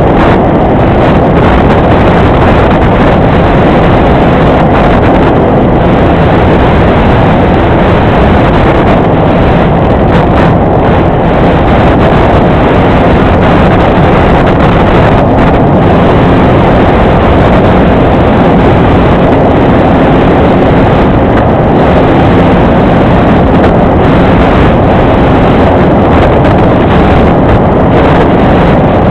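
Apprentice RC trainer plane's electric motor and propeller running steadily in flight, with a loud wind rush over the onboard camera's microphone.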